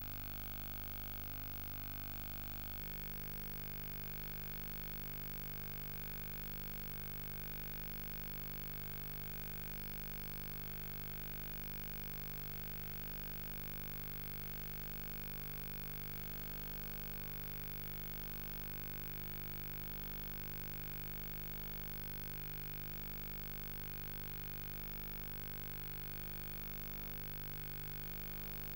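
Steady electrical hum with hiss and no programme sound; the mix of hum tones shifts slightly about three seconds in.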